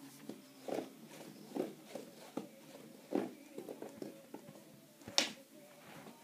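Pink ribbon wand cat toy swept and flicked over carpet: a series of soft rustles and brushes about a second apart, with one sharper rustle about five seconds in.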